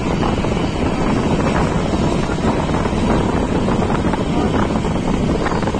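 Passenger train running at speed, heard from on board: a steady rush of wind buffeting the microphone over the continuous rumble of wheels on the track.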